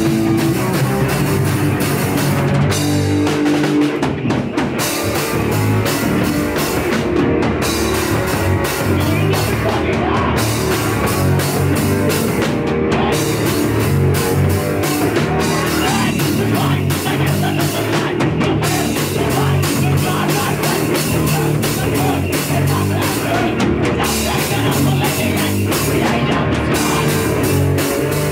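Hardcore punk band playing a song live at full volume: a fast drum kit with rapid cymbal hits under loud band instruments.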